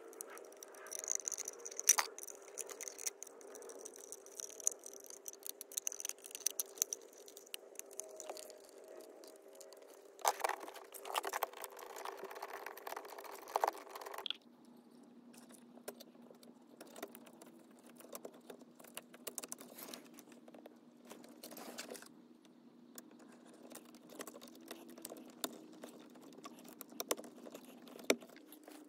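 Small clicks, taps and rattles of hand work on a car's steering column: a screwdriver knocking against the plastic column shroud, and the plastic clock spring being handled and seated. A faint steady hum lies underneath.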